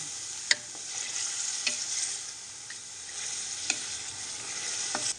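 Mutton pieces sizzling in oil and masala in an aluminium pressure cooker pot while being stirred with a spatula, the meat being browned (bhuna). A few sharp knocks of the spatula against the pot sound through the steady sizzle.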